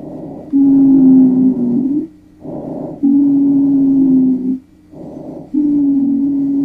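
Recorded breath sounds, about three breaths. Each breath has a short, soft, noisy phase followed by a longer phase carrying a steady low musical tone, the continuous sound known as a wheeze.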